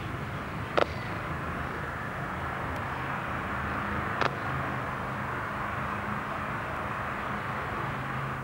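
Steady open-air background rumble and hiss over a parade ground, with two short sharp knocks: one about a second in, and a louder-looking one about four seconds in, a drill boot striking the wet tarmac as a soldier steps off.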